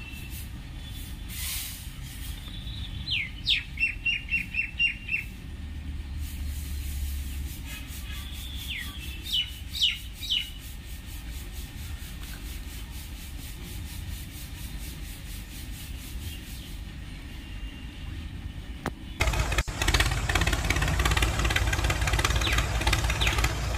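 Small birds chirping in two short runs of quick, high, falling chirps over a low steady rumble. About nineteen seconds in, a much louder engine noise starts abruptly and keeps going.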